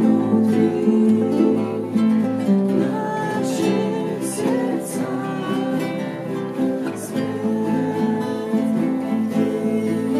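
A band playing a song led by strummed acoustic guitar, with other sustained notes underneath.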